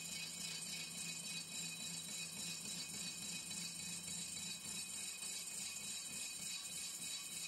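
Engine lathe turning a cast truck brake drum: a steady motor and gearbox hum under a constant high metallic hiss.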